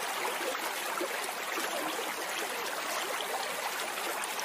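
Steady sound of running water, like a babbling stream, with no change in level.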